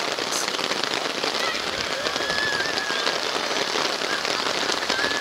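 Rain pattering close to the microphone: a steady crackling hiss of many small drop impacts.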